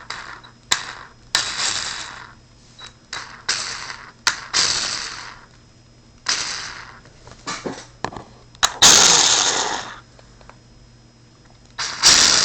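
Electric motor and transmission of an RC truck spinning up in a series of short throttle blips, each cutting in sharply and winding down, the loudest about nine seconds in. The blips are a test run of the newly heatsinked motor, which is working properly.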